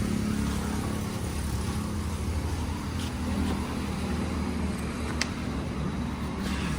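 An engine idling steadily, with one short click about five seconds in.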